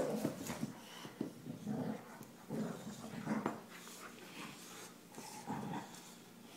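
Two boxer dogs play-growling and grunting in short, irregular bouts while tugging at a toy together.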